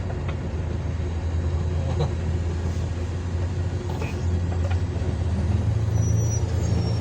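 Large excavator's diesel engine running with a steady low drone; about five and a half seconds in its pitch rises and it gets a little louder as it picks up revs. A few faint clicks.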